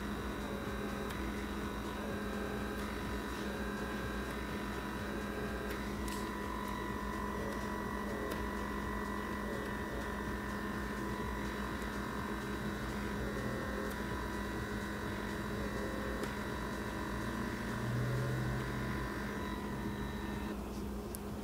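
Small electric suction motor of an ABsuper rechargeable blackhead vacuum running with a steady hum, its pitch wavering slightly as the nozzle moves over the skin; it switches off shortly before the end.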